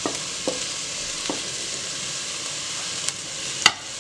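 Onion and tomato and pepper paste sizzling steadily in butter in a stainless steel pot as boiled white beans are tipped in and stirred with a wooden spoon. A few light knocks against the pot break through the sizzle, the loudest a sharp one near the end.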